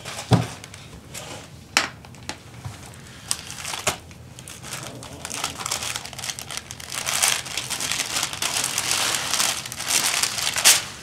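Paper gift wrap being torn and crumpled by hand as a present is unwrapped. A few sharp rips come in the first four seconds, then continuous rustling and tearing that grows louder through the second half.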